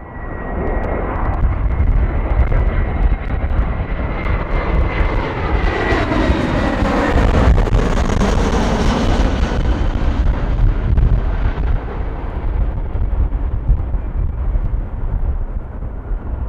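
Jet airliner passing close by: its engine whine swells, peaks about halfway through and falls in pitch as it goes past, over a heavy low rumble.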